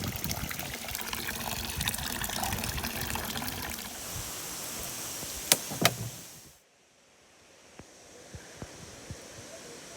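Steady rush of flowing river water, with two sharp clicks just past the middle; the water sound cuts off abruptly about two-thirds of the way through, leaving a much quieter background with a few faint ticks.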